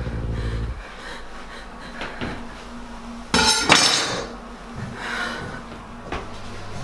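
A metal kitchen knife dropped into a bathtub, clattering in two quick strikes with a short ring about three and a half seconds in. A low hum cuts off under a second in.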